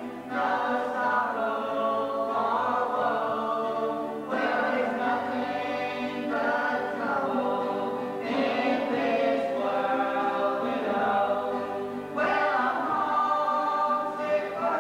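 Gospel song performed live: several voices singing together over acoustic guitars, in phrases of about two seconds each.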